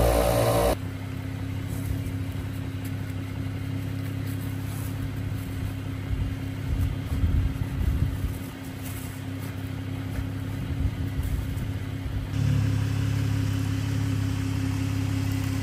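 A Jeep's engine running at low speed with a steady low hum, unsteady for a few seconds in the middle. The sound changes abruptly about a second in, and again near the end it comes back louder.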